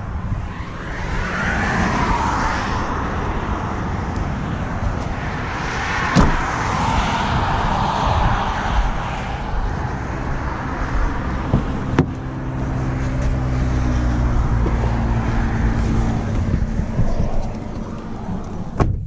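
Outdoor wind and background noise around a parked car, with sharp knocks about six and twelve seconds in and a low steady engine hum in the second half. Near the end a car door shuts, and the sound drops to the quieter cabin.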